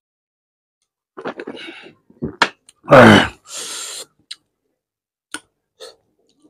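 Swallowing from a glass, then about three seconds in a loud, short voiced burst from the throat that falls in pitch, followed by a breathy exhale; after that a few soft clicks and smacks of eating with the fingers.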